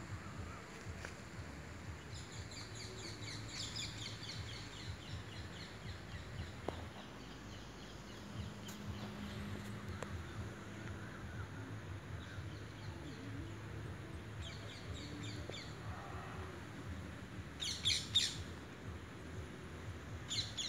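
Birds chirping in quick runs of short high notes, with the loudest bursts near the end, over steady outdoor background noise.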